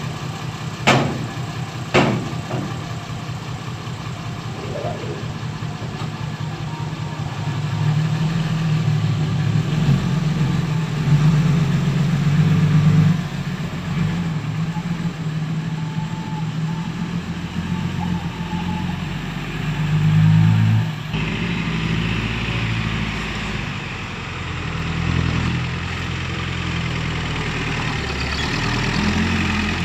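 Six-wheel dump truck diesel engines running, with three sharp clanks in the first two seconds and the engine revving up between about eight and thirteen seconds as a truck pulls away, then again around twenty seconds.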